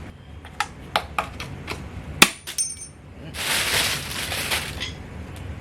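Retaining clips being popped off a 1966 Mustang heater box: a run of sharp clicks and clinks, the loudest about two seconds in, followed by a scraping rush lasting about a second and a half.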